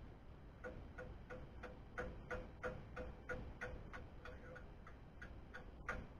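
Light metallic taps at an even pace, about three a second, each with a brief ring. They start just under a second in and stop near the end, the last one a little louder.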